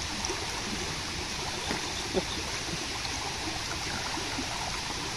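Fast-flowing water rushing steadily through a narrow concrete-lined irrigation channel, with one brief sharper sound about two seconds in.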